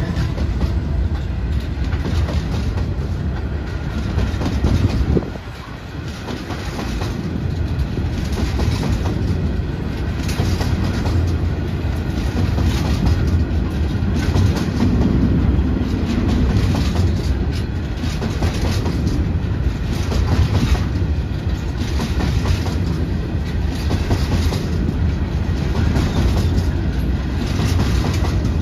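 Train passing on the line, a steady rumble with the wheels clicking rhythmically over rail joints. The level drops suddenly about five seconds in, then builds back up.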